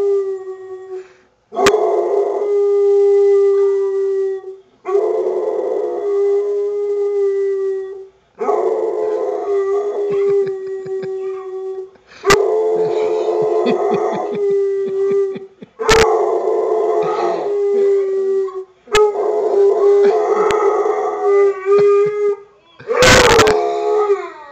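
A dog howling in about seven long, steady howls of roughly three seconds each, with short breaks between them. Several howls open with a sharp yip, the loudest one near the end.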